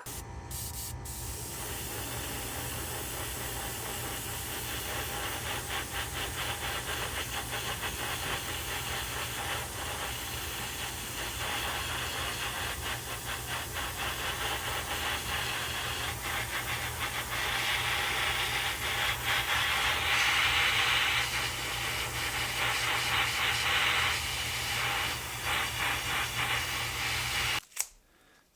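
Airbrush spraying black paint in a spray booth: a steady hiss over a low hum. It grows louder in stretches later on and cuts off suddenly near the end.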